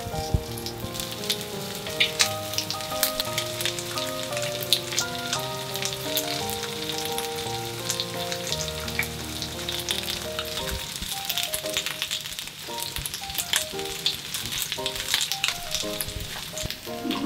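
Chicken thigh pieces and lotus root slices sizzling in hot oil in a frying pan as they are laid in, with frequent small pops and crackles of spattering oil. Soft background music plays underneath.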